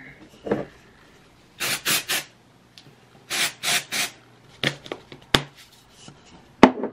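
Aerosol dry shampoo sprayed into hair in short hissing bursts, three quick sprays about two seconds in and three more about a second later. A couple of sharp knocks follow near the end.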